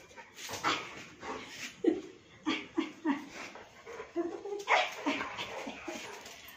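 Saint Bernard puppy making many short vocal sounds in play, one after another with brief gaps, along with a few breathy huffs.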